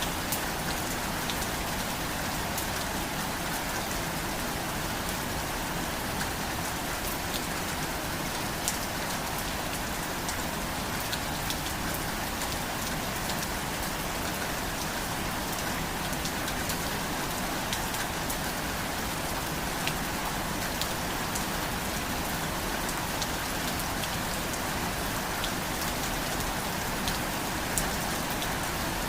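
Steady rain falling on a surface, an even hiss dotted with the sharp ticks of individual drops.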